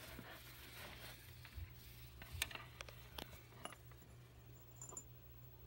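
Faint, scattered sharp clicks and ticks, the strongest about two and a half seconds in, over a low steady hum.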